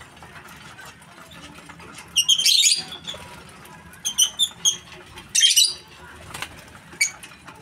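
Lovebirds giving shrill chirps in short bursts: a harsh burst about two seconds in, a quick run of short chirps around four seconds, another burst at about five and a half seconds, and a single chirp near the end.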